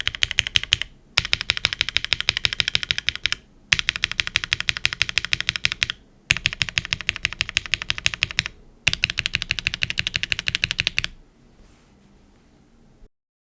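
Fast typing on a Neo75 CU mechanical keyboard with scratchy mechanical switches, aluminium plate, gasket mount and GMK keycaps, in runs of about two seconds separated by brief pauses. The typing stops about two seconds before the end.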